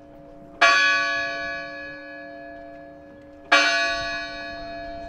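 Monastery church bell struck twice, about three seconds apart, each stroke ringing on and slowly fading.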